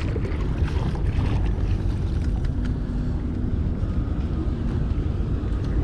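Wind buffeting the microphone with a steady low rumble, over water lapping around a small boat, with a few faint knocks.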